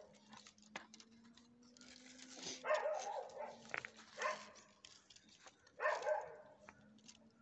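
A dog barking three times, a second or two apart, over a faint steady hum.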